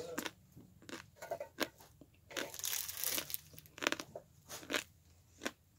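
Footsteps crunching over debris on a floor: a series of irregular crunches, with a longer scraping crunch near the middle.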